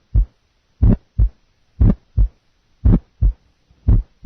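Recorded heart sounds heard through a stethoscope: paired lub-dub beats about once a second, four full beats. This is the teaching example of a pulmonic ejection sound, an early systolic click just after the first heart sound.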